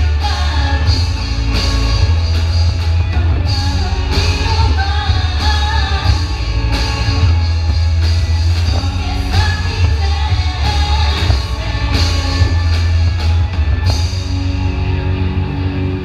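Live rock band playing with sung vocals over electric guitars, bass guitar and drums. About fourteen seconds in, the drums and cymbals stop, leaving a held chord ringing.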